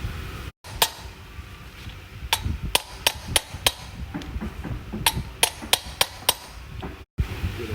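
Hammer tapping on metal, about a dozen sharp ringing strikes in two quick runs of five or six. The sound cuts out briefly twice.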